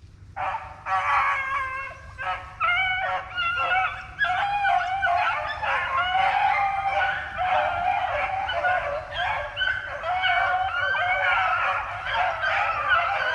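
A pack of rabbit hounds baying in full cry, many voices overlapping without a break, starting about half a second in: the dogs are running a freshly jumped rabbit on its scent.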